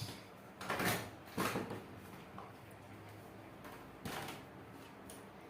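A door being opened, heard as three short scraping swishes: two close together about a second in, and one more near the end.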